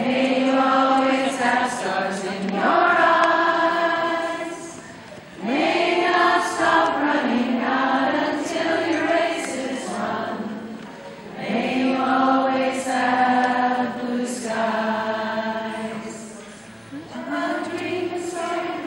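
A group of women singing a slow song together, in long held phrases with short pauses for breath between them.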